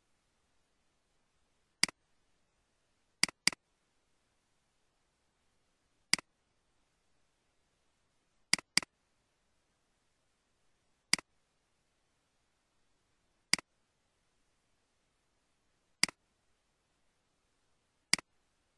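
Computer mouse button clicks: six sharp single clicks and two double-clicks, a few seconds apart.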